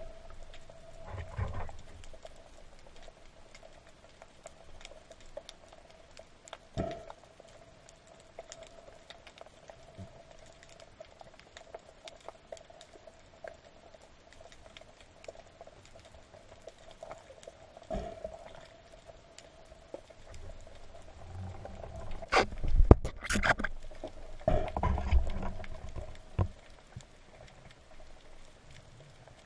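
Muffled underwater sound picked up through a waterproof camera housing: a faint steady hum with scattered small clicks and low swishes of moving water. About three-quarters of the way through come two sharp knocks, then a few seconds of low, muffled water movement.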